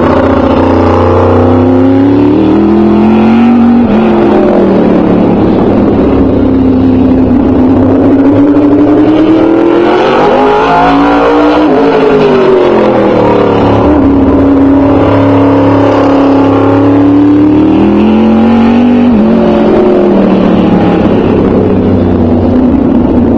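A single open-wheel modified race car's engine lapping a short oval. The pitch falls away into the turns and climbs again on the straights, with a sudden jump up twice. It is very loud throughout.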